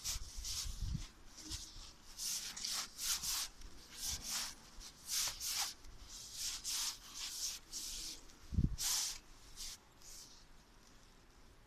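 Scratchy rubbing close to the microphone in short, irregular strokes, with one low bump about eight and a half seconds in.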